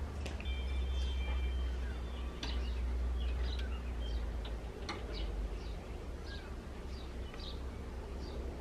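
Small birds chirping in short, scattered calls over a steady low rumble, with a few sharp clicks.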